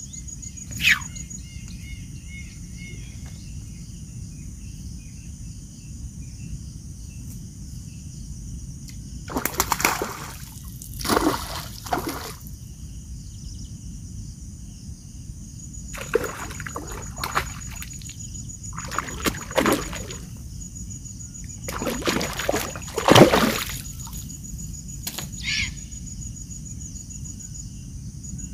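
Water splashing in about five short bursts, the loudest about three-quarters of the way through, over a steady high drone of crickets.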